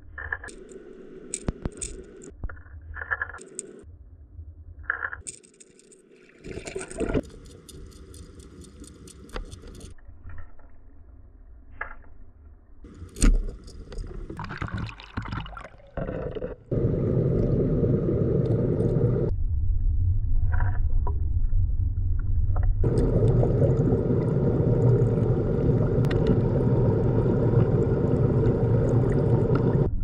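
Stream water heard underwater: scattered clicks and scrapes at first, then, a little past halfway, a loud steady rush of turbulent, bubble-filled water. The rush drops back for a few seconds and then returns.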